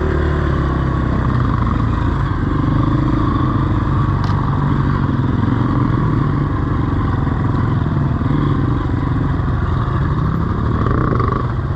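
Honda CRF230F dirt bike's single-cylinder four-stroke engine running steadily at low revs, its note drifting only slightly up and down.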